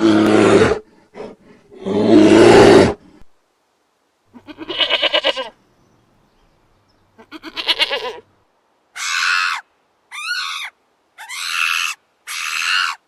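A run of separate animal calls: two loud, low calls, then two quavering bleats, then four short higher-pitched calls that rise and fall in pitch.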